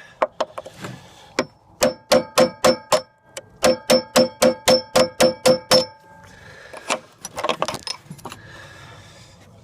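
Hammer striking a cold chisel to cut through a fuel-pump bolt that spins instead of unscrewing: a few light taps, then two quick runs of ringing metal blows, about five and then about ten strikes at some four a second. Some lighter clattering of metal near the end.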